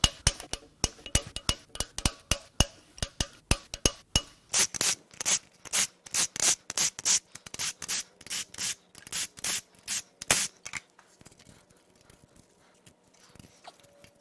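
Hand ratchet clicking in quick short strokes as camshaft bearing cap bolts are cracked loose, turning into longer, louder strokes about four seconds in and stopping about ten seconds in.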